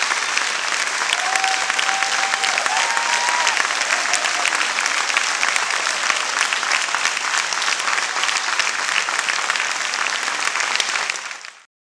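Theatre audience applauding steadily after a dance performance, the applause fading out near the end.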